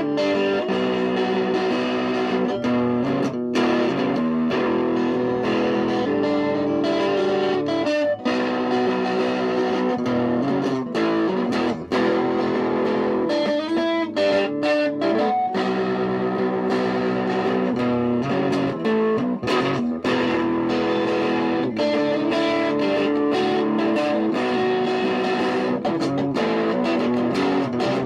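Guitar music: an electric guitar with effects playing a steady run of held notes.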